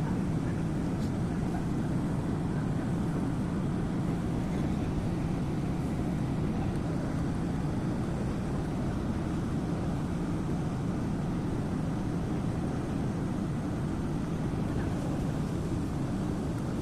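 Sany 80-ton crane's diesel engine running steadily, a low, even rumble.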